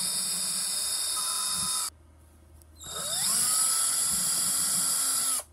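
Cordless drill with a thin bit boring small holes into a carved pine lure body. It runs steadily for about two seconds and stops, then spins up again with a rising whine and runs for about two and a half seconds more.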